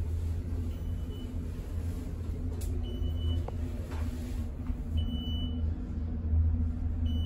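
Elevator car travelling down: a steady low hum and rumble of the moving car, with a short high beep about every two seconds as it passes each floor.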